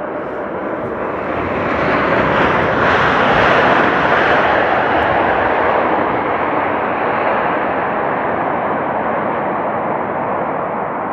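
Jet noise from a StarLux Airbus A330-941 (A330neo) with Rolls-Royce Trent 7000 engines arriving to land. It swells to a peak a few seconds in, then slowly fades.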